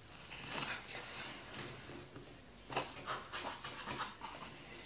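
Several short rasping scrapes of a tool drawn across corrugated cardboard while fold lines are scored and marked.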